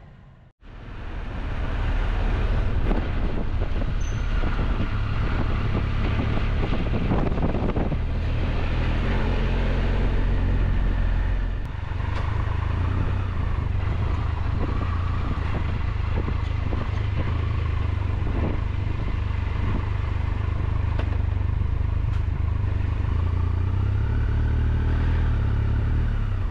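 Triumph Tiger 1200's three-cylinder engine running at low town speed, heard from on the bike with road noise. The engine note dips briefly about twelve seconds in, then carries on steadily.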